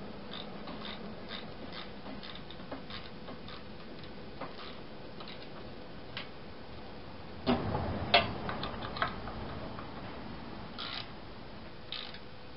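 Light metallic clicks of a wrench working bolts on a Champion 2-inch trash pump's housing, with a cluster of louder metal knocks about halfway through.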